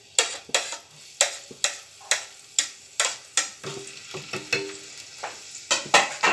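Chopped onion sizzling in hot oil in a frying pan, under sharp scraping strokes about twice a second as onion is pushed off a plate into the pan. The strokes are loudest near the end.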